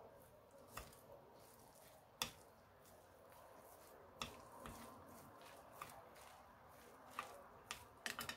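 Chopsticks mixing grated zucchini and carrot in a glass baking dish: faint stirring with a scattering of sharp clicks from the chopsticks. The loudest click comes about two seconds in, and several come close together near the end.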